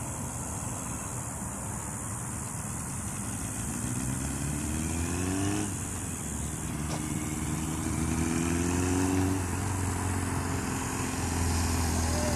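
Yamaha XJ700 bobber's inline-four engine approaching and accelerating through the gears. The pitch climbs, drops at an upshift about halfway through, climbs again and drops at a second upshift about three-quarters through, and the engine grows louder as the bike nears.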